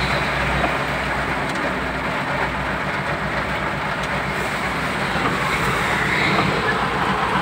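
Heavy rain falling on a vehicle's roof and windscreen, heard from inside the cabin, over the low steady hum of the vehicle's engine.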